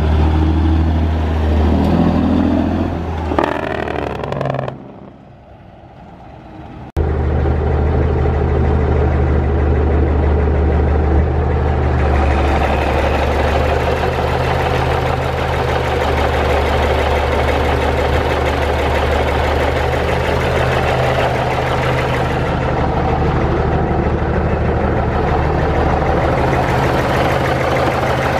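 Cummins NTC400 six-cylinder diesel in a 1984 Peterbilt 359. Its pitch shifts up and down in the first few seconds and goes quieter for a couple of seconds; then, from about seven seconds in, it idles steadily.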